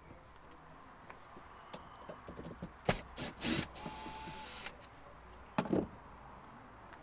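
A cover panel being handled and taken off a battery box: a couple of sharp knocks, a short sliding scrape with a faint squeak, then a dull thump near the end.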